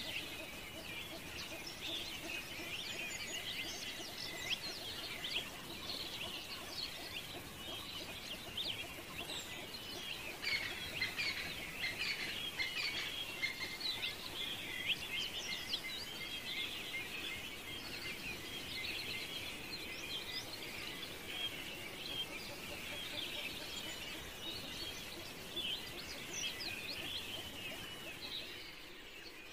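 Small birds chirping and twittering continuously, many short overlapping calls.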